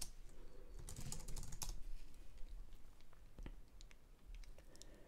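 Typing on a computer keyboard, faint: a quick run of keystrokes in the first couple of seconds, then a few scattered ones. It is a password being entered at a sudo prompt.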